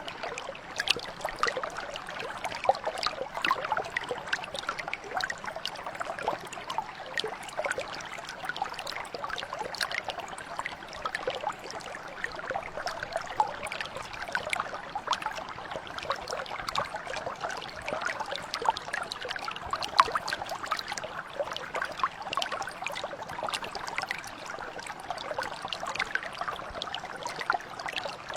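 Shallow mountain brook flowing steadily, water burbling and splashing over stones, with a constant stream of small splashes.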